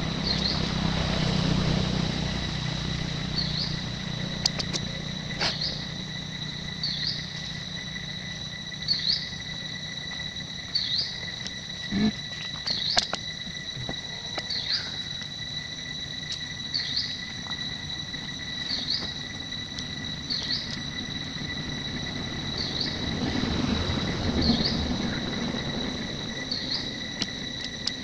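Steady high-pitched insect drone with a short call repeating about every two seconds, plus a few scattered clicks and rustles.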